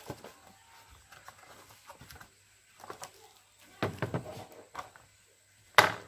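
A cardboard box holding a replacement washing-machine control board is handled and opened: scattered rustles and light knocks, a heavier bout of bumping and scraping about four seconds in, and a single sharp snap near the end.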